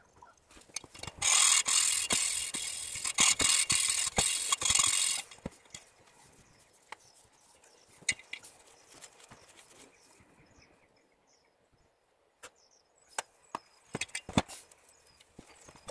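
A valve being lapped into its seat in a Yamaha XS650 cylinder head with lapping paste: a loud gritty rasping for about four seconds, then light clicks and taps of the valve and tools, with a few sharper clicks near the end.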